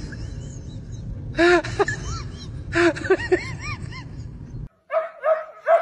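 Chihuahua whining in short cries that rise and fall in pitch, in two bursts, over a steady low rumble. About four and a half seconds in the rumble cuts off and a quick run of higher-pitched yips follows.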